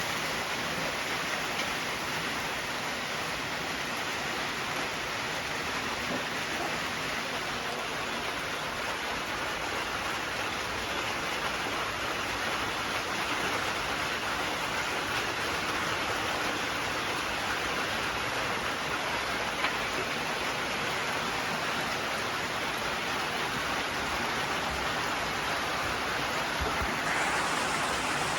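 Steady rain falling, an even unbroken patter with one small click near the end.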